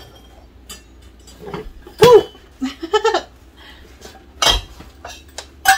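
Clinks and knocks of glass and kitchen utensils being handled, with a couple of short wordless vocal sounds about two and three seconds in, the first the loudest.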